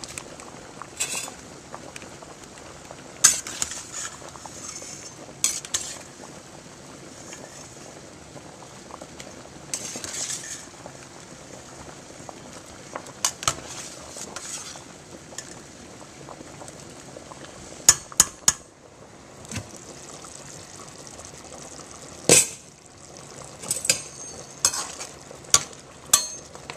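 Pasta boiling in a stainless steel pot, a steady bubbling hiss, while a utensil stirs it and repeatedly clinks and knocks against the pot's side.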